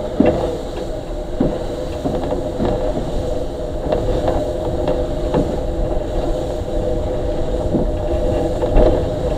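Steam-hauled train rolling slowly through a station yard, its wheels knocking over rail joints and points at uneven intervals over a steady running hum.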